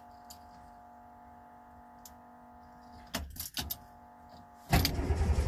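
Faint steady hum of the 1970 Subaru 360 van's electric fuel pump running with the key on, with a short rattle of keys a little after three seconds in. Near the end the starter suddenly cranks the cold two-stroke engine over loudly, choke pulled, as it tries to start.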